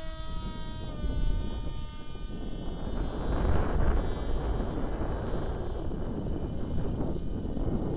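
Turnigy 2836 brushless motor and pusher propeller of a foam flying wing whining steadily in flight, the pitch dropping slightly about a second in, then a broad rushing noise swelling from about three seconds in. The owner calls the prop very noisy and puts it down to the prop sitting too close to the back of the wing.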